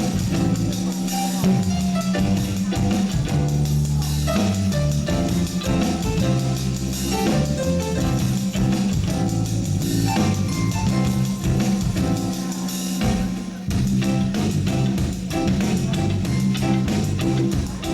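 Live reggae band playing, with a prominent walking bass line under drum kit and percussion.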